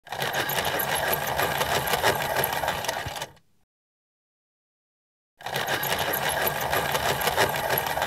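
Hand-cranked pencil sharpener being cranked: a dense, rapid mechanical grinding lasting about three seconds, then silence, then a second burst of grinding starting a little past halfway.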